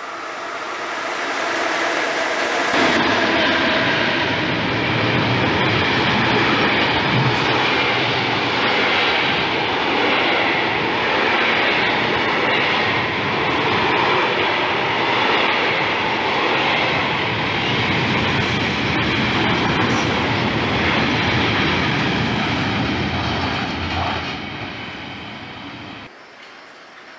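Freight train rolling past close by: a steady, loud rumble and clatter of wagon wheels on the rails. It starts abruptly about three seconds in and cuts off near the end.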